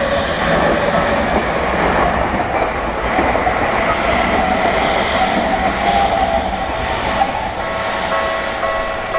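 A Tokyu Toyoko Line electric train running past over a level crossing, its wheels and running gear loud and steady. The crossing's electronic warning bell keeps ringing underneath and stands out again near the end as the train noise falls away.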